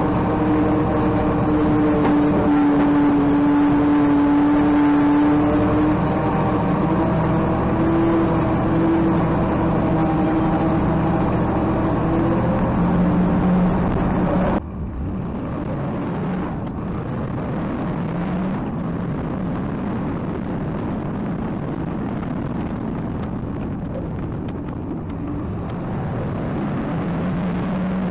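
A large vehicle engine running, its pitch shifting up and down over the first half. About halfway through it cuts abruptly to a steadier, rougher engine-and-machinery drone.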